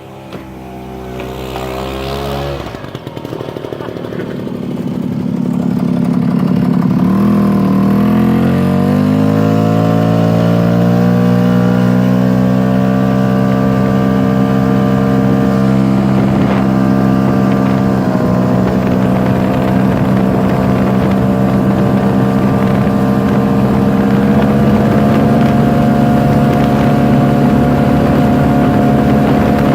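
Vintage snowmobile's two-stroke engine accelerating, its pitch climbing over the first several seconds. It then runs steadily at speed.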